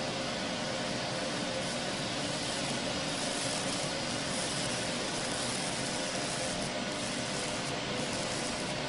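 Fiber laser cutting machine at work cutting gold sheet: a steady hiss with a faint steady hum underneath.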